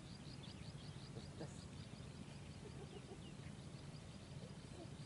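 Faint, rapid high chirping, about six chirps a second, thinning out after about two seconds, over a steady low background noise.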